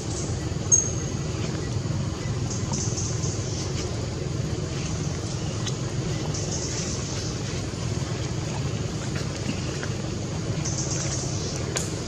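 Steady low rumbling background noise with a faint hiss higher up, like distant traffic or wind. A brief high-pitched squeak comes about a second in, and there are a few faint clicks.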